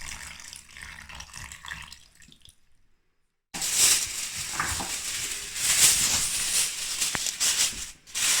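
Fish stock being poured into the paella pan of rice, a splashing, hissing liquid sound. It breaks off for about a second partway through and comes back much louder.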